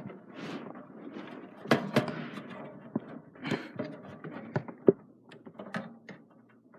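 Irregular sharp clicks and knocks of computer parts being handled and pushed into place inside a PC case.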